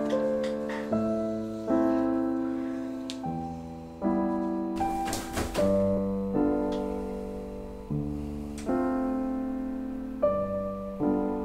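Slow piano music: chords are struck every one to two seconds, and each rings and fades before the next.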